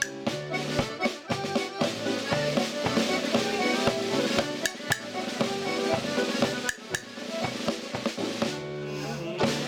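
Irish traditional dance tune played on button accordions and a tenor banjo, with sharp rhythmic strikes throughout and a held chord near the end.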